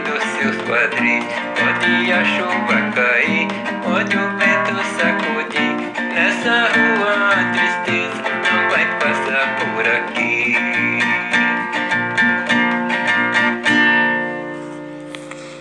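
Instrumental close of a samba song: strummed plucked strings over rhythmic percussion, ending near the end on a held final chord that rings out and fades.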